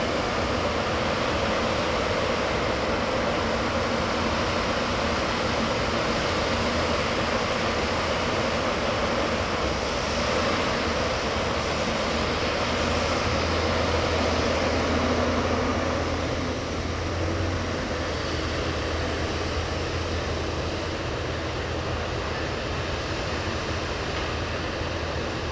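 Backhoe loader's diesel engine running steadily, a continuous low drone under a broad mechanical din. It eases slightly about two thirds of the way through.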